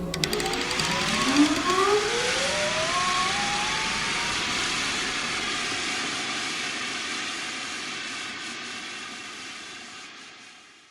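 Large belt-driven electric motor starting and running: a whine that rises in pitch over the first few seconds and levels off, over a steady rushing noise, then fades out near the end.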